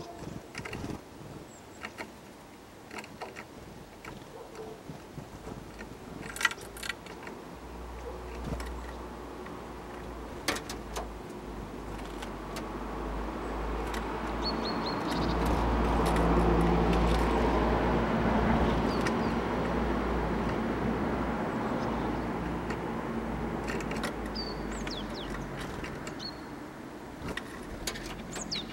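A passing road vehicle's low rumble swells and fades, loudest about halfway through. Over it come small scattered taps and clicks, and a few short high chirps from tits at the feeder, near the middle and again near the end.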